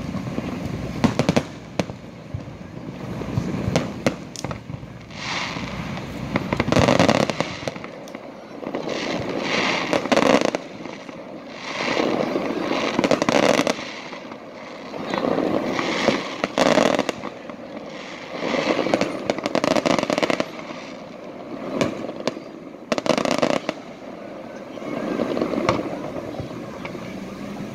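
Fireworks display: aerial shells bursting with sharp bangs, each followed by a swell of crackling every one to three seconds.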